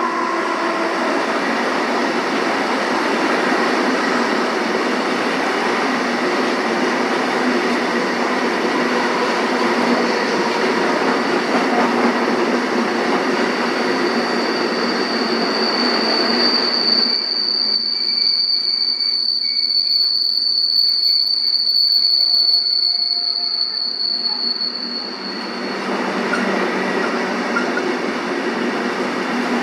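Container freight train rolling past with loud, dense wheel-on-rail noise. About halfway through, a single high wheel squeal rings steadily for around ten seconds, and for much of that time it stands out over fainter rolling noise.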